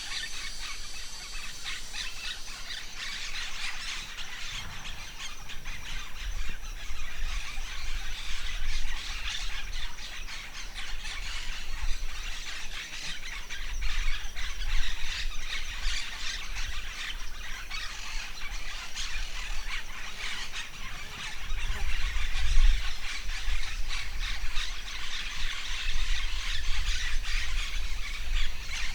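A dense chorus of forest birds chirping and calling without pause, with low gusts of wind buffeting the microphone every few seconds.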